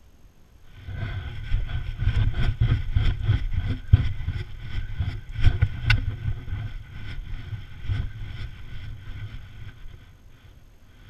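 Noise of a GoPro strapped to a running Irish terrier: rapid knocking, thumping and rattling as the camera bounces with each stride. It starts about a second in, with one sharper knock near the middle, and eases off near the end.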